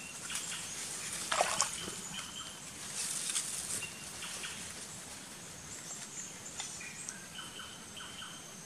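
Rubber boots stepping in wet mud and leaf litter, with squelching, rustling steps about a second and a half in and again around three seconds. Short high chirps and a thin steady high whine from the forest sound around them.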